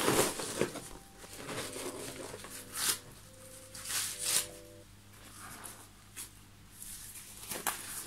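Nitrile gloves rustling and snapping as they are handled and pulled onto the hands, in a few short bursts.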